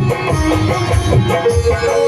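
Folk music with a steady, loud drum beat, melodic lines and a shaker.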